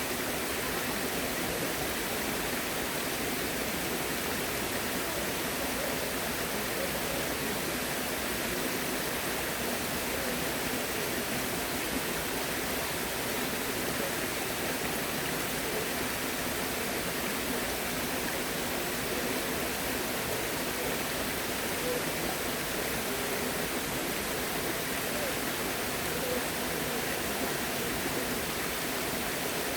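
Steady rush of flowing water, unchanging in level throughout.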